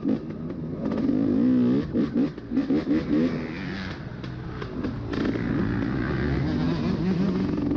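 Two-stroke dirt bike engine revving up and down as the throttle is worked, with several quick blips in the first few seconds, then running steadier at part throttle.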